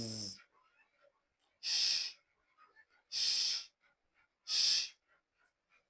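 A teacher's voice pronouncing isolated fricative consonants for demonstration. A voiced buzzing fricative ends just at the start, then a voiceless hissing fricative, like a drawn-out "s", comes three times, each about half a second long and about 1.4 s apart.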